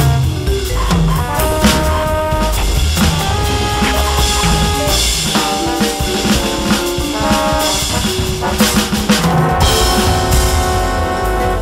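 Roland V-Drums electronic drum kit playing a jazz four-beat swing time along with a sequenced backing from a Maschine Studio, with held pitched notes above the drums that change about every second.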